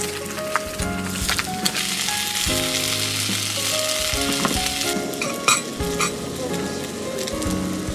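Food sizzling as it fries in a hot pan, with a few sharp clicks of utensils, over background music. The sizzle starts about half a second in.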